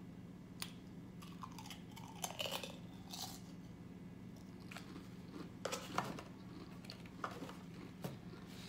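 Close-up crunching and chewing of Pringles potato crisps: a scattering of short, sharp crunches at irregular intervals, over a low steady hum.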